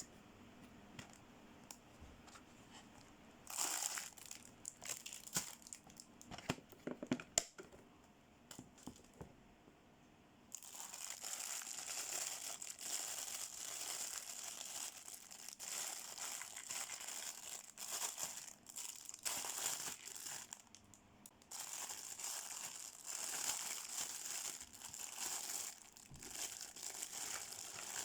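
Toy packaging being unwrapped by hand. It starts as scattered clicks and rustles. About a third of the way in it becomes steady crinkling and tearing, with a short pause past the two-thirds mark.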